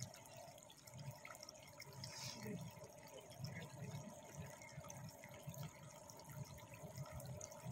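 Faint outdoor background noise: a low, uneven fluttering rumble with a few faint ticks.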